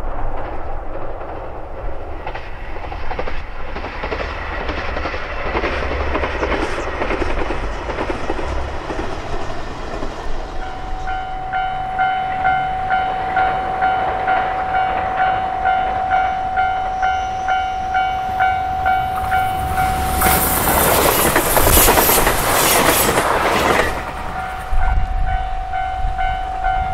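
JR Shikoku 2000 series diesel multiple unit running over a bridge with a steady rumble. Partway through, a level-crossing alarm starts ringing in regular pulses, about one and a half a second, and the train passes close by, loudest for about four seconds near the end, with the alarm still ringing after it.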